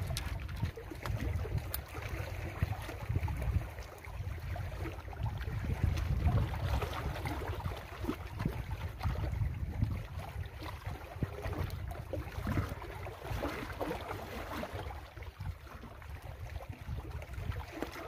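Wind gusting on the microphone with small waves lapping against the rocky lakeshore, a steady rumbling rush that swells and eases.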